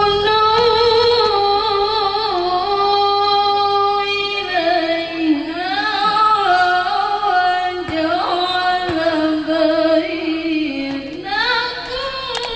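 A woman's voice chanting Quran recitation (tilawah) in long, held, ornamented melodic phrases, through a handheld microphone. It breaks briefly near the end and starts a new phrase.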